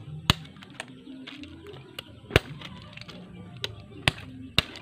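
A large knife chopping the pointed tail tips off conical snail shells, a handful of sharp chops at uneven intervals. The tips are cut off so the snail meat can later be sucked out of the shell.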